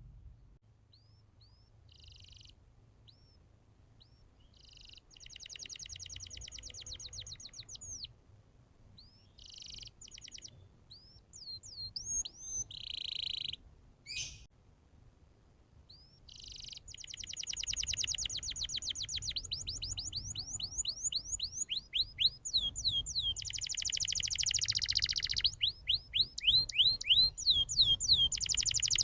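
Domestic canary singing: rapid trills and runs of quick sweeping notes in short phrases with gaps, turning into near-continuous song about halfway through.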